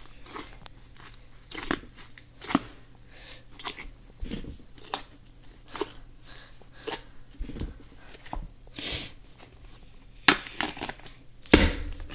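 Soft, thick slime being squished and pressed by hand in a plastic tub, giving off irregular crackling and popping cracks. A couple of louder knocks come near the end.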